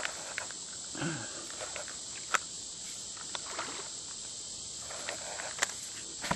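Steady high-pitched insect drone from the creekside vegetation, with a few sharp clicks, the loudest about two and a half seconds in, and a brief low voice sound about a second in.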